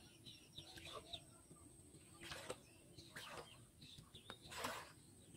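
Faint splashes of legs wading through shallow pond water, three soft sloshes about a second apart in the second half, with small birds chirping faintly.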